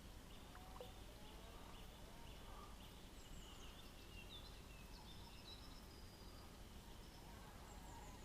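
Faint birdsong: short, high chirps and twitters from several birds over a low, steady background hiss.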